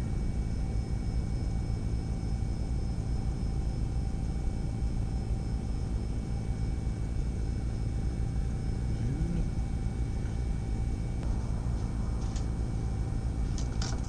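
Steady low hum and hiss of electronics-workbench equipment, with faint steady high tones over it. A few light clicks near the end as items are handled and set down on the bench.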